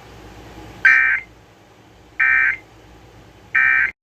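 Emergency Alert System end-of-message data bursts: three short, buzzy digital warbles about 1.3 seconds apart, signalling that the alert broadcast has ended.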